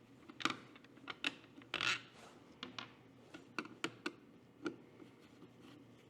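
Faint scattered clicks and scrapes of small screws being taken out of a red-dot finder scope's mounting bracket, with a short scrape about two seconds in.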